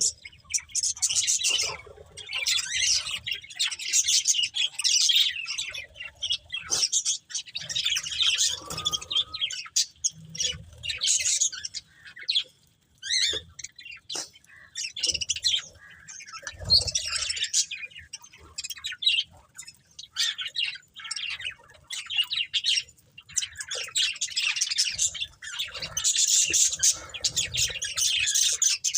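Budgerigars chattering and chirping in fast, warbling bouts of a few seconds, broken by brief pauses, with occasional harsher squawks.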